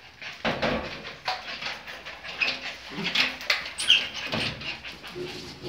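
Excited miniature pinschers making short high yelps and whines, with scattered knocks and clatter through it; the loudest yelp comes about four seconds in.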